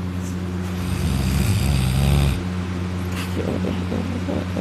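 A man snoring heavily while lying on his back with his mouth open: one long, loud, rough snore starting just under a second in and lasting about a second and a half, then softer fluttering breaths near the end, over a steady low hum.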